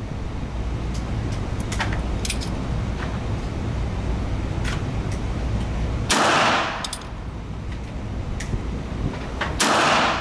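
Ruger Super Wrangler .22 rimfire single-action revolver fired twice, about three and a half seconds apart, each shot a sharp crack with a short echo off the concrete walls of an indoor range. Fainter sharp clicks come in between.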